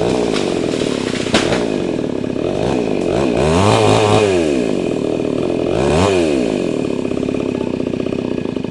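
Two-stroke chainsaw running at speed, its engine revving up and back down twice, about halfway through and again a couple of seconds later.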